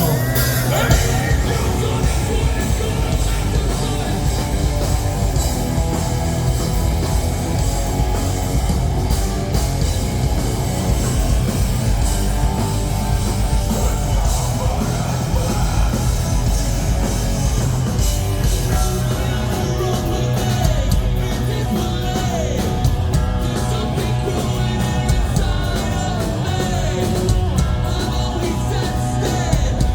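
Live rock band playing loud, distorted guitars, bass and drums, with singing over the band in the later part.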